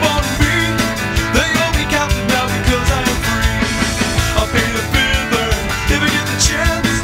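Rock band playing a song from a 1994 CD recording, with drums, bass and guitar and a steady beat.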